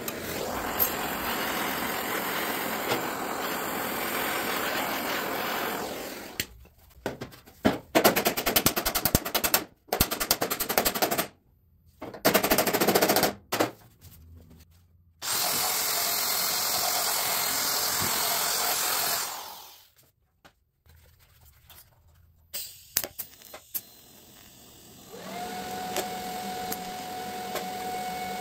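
Sheet-metal repair on a truck quarter panel: MIG welder crackling in short, rapid bursts in the middle, between longer stretches of steady hissing shop-tool noise. Near the end a power tool's motor hums at a steady pitch.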